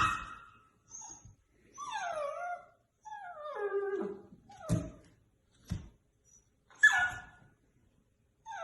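A dog whining and yipping: several high cries that slide down in pitch, with a sharper, louder yelp at the start and another about seven seconds in. Two brief knocks fall between the cries.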